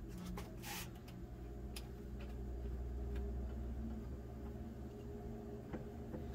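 Light handling noise as a bipod is screwed by hand onto the adapter stud under a rifle's fore-end: a few small clicks near the start and another near the end, over a low rumble that swells in the middle.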